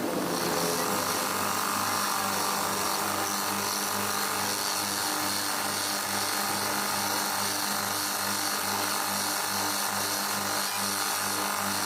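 An electric power tool running steadily, with a low throb pulsing about twice a second.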